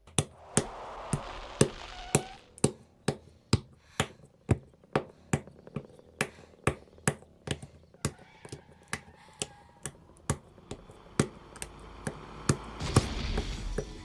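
A steady beat of sharp, snap-like clicks from a backing track, about two a second, over a low hiss, with a swelling whoosh near the end.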